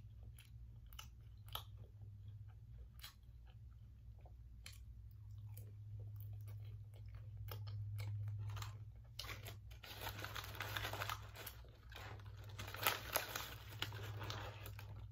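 Close-up chewing of a breaded spicy chicken nugget, with scattered crunches and mouth clicks that thicken into denser crunching about two-thirds of the way through, over a steady low hum.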